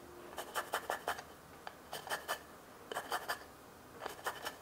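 Lime being rubbed over a Microplane grater for zest: short, sharp rasping scrapes in four quick runs of a few strokes each, roughly one run a second.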